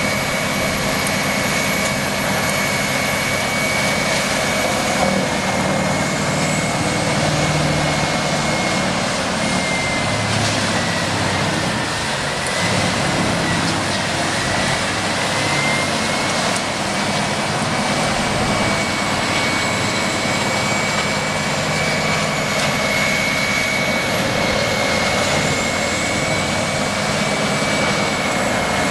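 A large machine runs steadily and loudly, with a high whine that sags a little in pitch about halfway through and then recovers.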